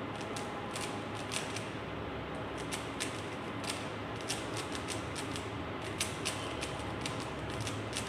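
Plastic Rubik's Cube being turned fast by hand during a solve, its layers clicking in quick irregular runs of a few clicks a second, over a steady background hiss.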